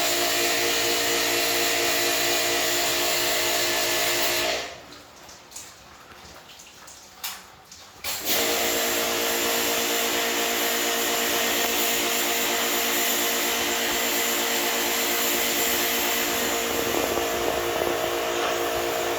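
Electric motor of air-conditioner cleaning equipment running with a steady hum and hiss. It switches off about four and a half seconds in and starts again after about four seconds.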